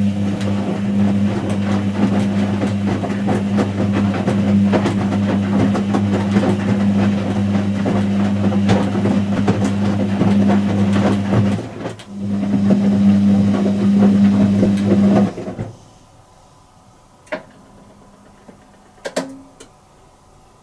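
Whirlpool H-axis top-loading washing machine running with a steady motor hum and churning noise, dipping briefly about twelve seconds in and then cutting off a few seconds later, followed by two short clicks.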